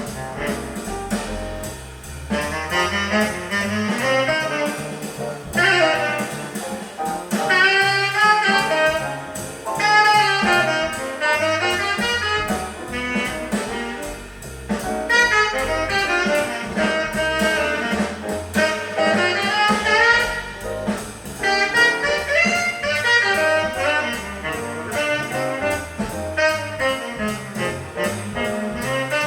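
Jazz with a saxophone and brass lead, played back on a hi-fi system: a record on an Acoustic Signature Tornado Neo turntable through Raidho X1.6 loudspeakers.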